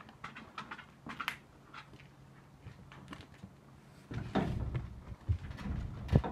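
A mountain bike being wheeled and lifted out of a shed doorway: light scattered clicks, then louder rustling and thumps from about four seconds in, with one sharp knock near the end.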